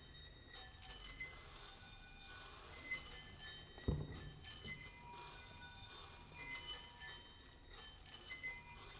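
A thin stream of rice grains pouring from a swinging cone pendulum patters into small bowls and sets them ringing with short, high, clear tones over a steady hiss of falling grain. About four seconds in there is a single dull knock as a bowl is handled on the rice. After it, a steady ringing tone lingers.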